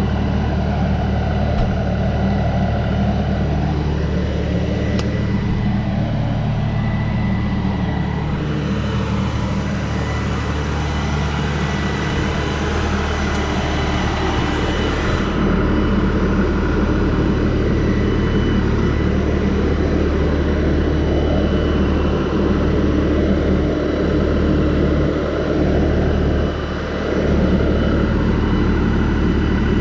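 42 hp LS compact tractor's diesel engine running steadily as the tractor drives up and then stands.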